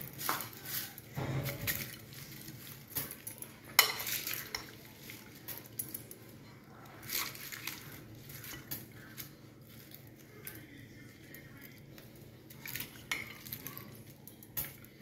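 A metal spoon stirring and tossing chicken fry with curry leaves in a glass bowl, with scattered sharp clinks of the spoon against the glass, the loudest about four seconds in.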